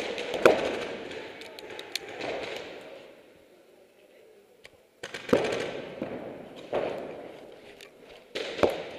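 Paintball fire: sharp pops of markers shooting and balls hitting bunkers, single shots and quick strings, echoing around a large indoor arena.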